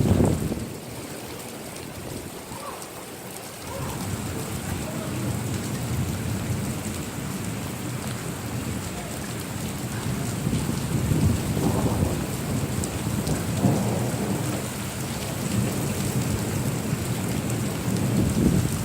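Steady rain with thunder: a rumble dies away as it begins, then after a few quieter seconds low rolling rumbles build again, strongest in the second half.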